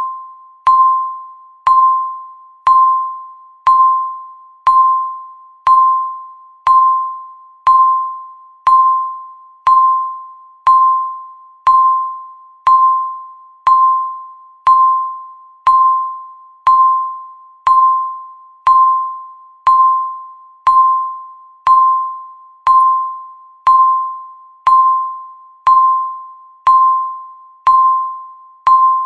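Countdown timer's electronic tick sounding once a second: a short, high ringing beep that fades quickly, steady throughout.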